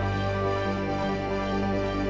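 Background music: a slow, sustained chord of held tones.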